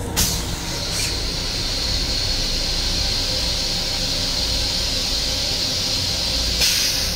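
Long Island Rail Road M7 railcar toilet flushing after its push button is pressed. A sharp click is followed by a steady high hiss as the bowl is rinsed, lasting about six seconds, and then a louder rush near the end before it dies down.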